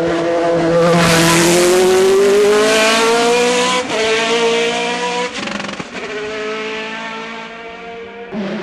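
Hill-climb race car engine accelerating hard, rising in pitch with gear changes about four and five and a half seconds in, then dropping away and fading.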